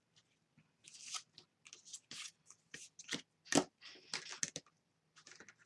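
Paper and cardstock pieces being handled and slid on a paper-covered craft table: irregular soft rustles and crinkles, with one louder rustle about three and a half seconds in.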